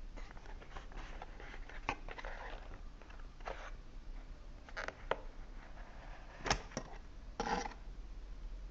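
Smartphone box and packaging being handled: scattered light clicks and taps with short rustles, a sharper click about six and a half seconds in and a brief rustle soon after.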